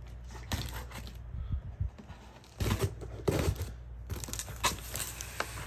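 Cardboard box and packing material being handled and torn open: irregular rustling, crinkling and tearing, loudest around the middle.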